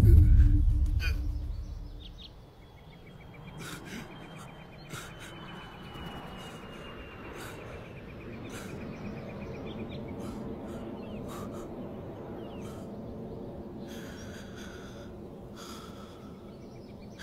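A deep low hit that fades away over about two seconds, then a man's laboured breathing and gasps over faint background noise, the breaths of a wounded man lying on his back. A thin high tone slowly falls in pitch under the breathing for a few seconds.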